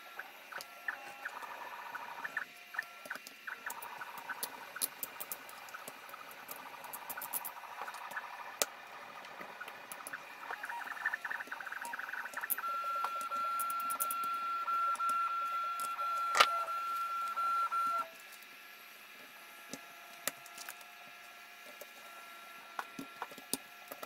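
A 3D printer's stepper motors whining in short, changing tones, with small clicks and clatter of PC parts being handled. About halfway through, a single steady whine holds for about five seconds and then cuts off suddenly, with a sharp click shortly before it ends.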